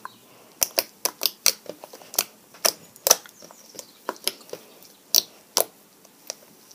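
Hands squeezing and stretching homemade butter slime made from glue, shaving foam and toilet paper, giving off a quick, irregular run of sharp clicking pops.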